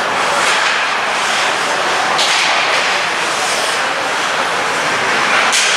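Steady loud noise of an ice hockey game in a rink, with sharp swishes of skate blades scraping the ice about two seconds in and again near the end.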